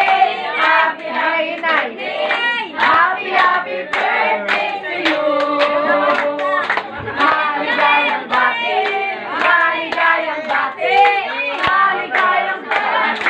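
A group of people clapping their hands along with singing voices, many claps in quick succession.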